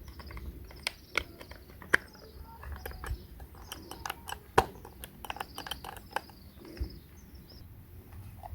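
Irregular sharp clicks and taps of small objects being handled, the loudest about two seconds and four and a half seconds in, over a steady run of short, high, repeated chirps.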